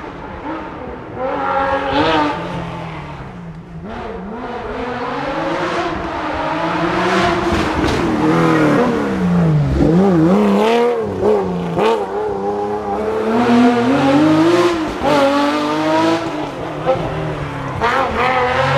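A historic rally car's engine driven hard on a special stage, its revs rising and falling again and again as it accelerates, changes gear and slows for corners.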